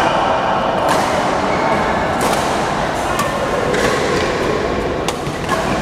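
Badminton rackets striking a shuttlecock in a doubles rally: sharp hits roughly once a second, over the steady din of a busy multi-court hall.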